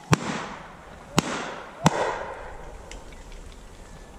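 Three shotgun shots at a flying pheasant, each trailing off in echo: the first two about a second apart, the third just over half a second after the second.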